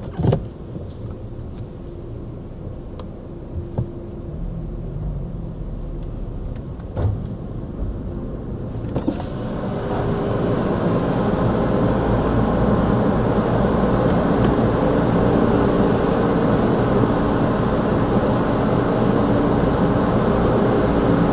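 Inside a car moving through a tunnel car wash: a low rumble with a few knocks, the loudest a thump right at the start. About nine seconds in, water spray starts hitting the car, a loud steady hiss over a machine hum, muffled by the closed cabin.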